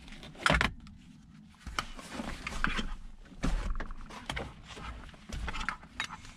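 Handling noise of a Schroth 4-point racing harness strap being fed through the slot of a fabric bucket seat: irregular rustling of nylon webbing against the seat, broken by scattered clicks and knocks, the loudest a sharp knock about half a second in.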